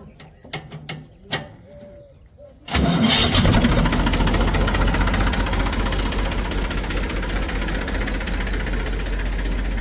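A few light clicks, then about three seconds in a diesel engine starts and runs steadily with a deep low hum.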